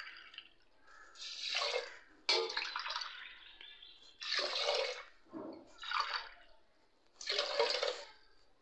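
Water being poured from a steel bowl into a stainless steel tumbler, and each tumblerful tipped into a pressure cooker of soaked rice and moong dal: about five splashing pours in turn, each under a second long with short pauses between.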